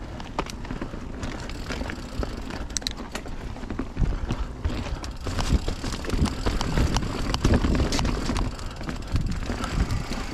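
Mountain bike rolling along a dirt trail: tyre noise with the bike clicking and rattling over bumps. The ride gets rougher about four seconds in, with heavier low thumps.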